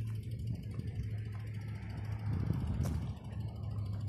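A motor running with a steady low hum, with one sharp click about three seconds in.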